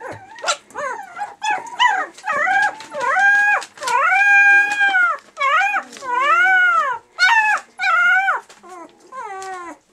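A very young Labrador-mix puppy whining and crying in a string of high-pitched calls that rise and fall. About four seconds in comes one longer, held cry.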